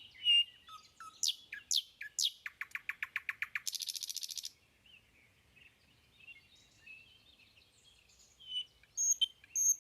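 A small songbird singing: a few quick whistles sweeping down in pitch, then a fast trill of about ten notes a second ending in a short harsh buzz. Softer chirps follow near the end.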